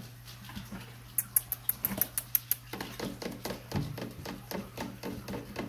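Rottweiler puppies scrabbling at a wooden box wall with sharp clicks of claws, then whimpering in short squeaks repeated about four or five times a second.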